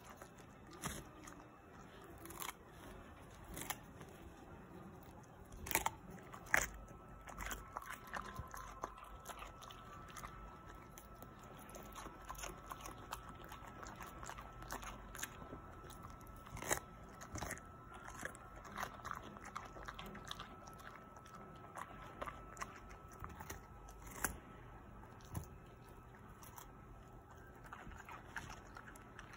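Samoyed biting and chewing a raw cucumber: irregular crisp crunches, the loudest a few about six seconds in and one near seventeen seconds.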